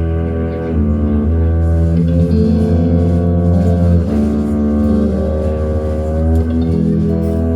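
A band playing, led by guitar over a bass line, with sustained chords that change every second or two.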